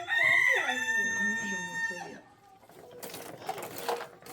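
A rooster crowing, one call of about two seconds, followed by a run of light, irregular clicks.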